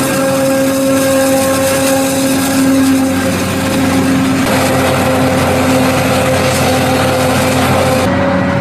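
New Holland FR700 forage harvester and the tractor pulling the forage wagon alongside, engines running steadily under load while chopping maize for silage. The sound changes character about four and a half and eight seconds in.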